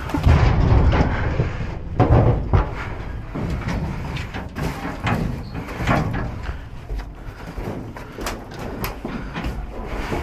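Metal gates and latches of a livestock trailer clanking and sliding as they are worked by hand, with footsteps on the bedded floor. The loudest knocks come about two seconds in and again around six seconds.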